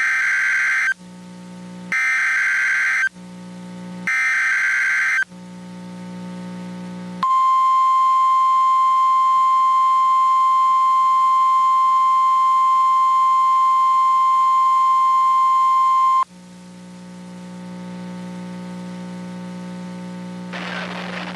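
NOAA Weather Radio's weekly alert test. Three one-second bursts of warbling SAME digital header data, about a second apart, are followed by the 1050 Hz warning alarm tone, held steady for about nine seconds. A low radio hum runs underneath.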